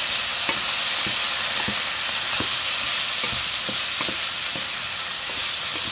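Zucchini sautéing over high heat in a frying pan: a steady sizzle, with a wooden spatula knocking against the pan about twice a second as it is stirred.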